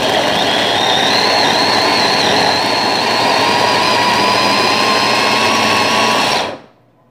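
Small electric press-top food chopper running steadily as it purées chopped tomatoes, its motor whine rising slightly in pitch. It stops suddenly about six and a half seconds in.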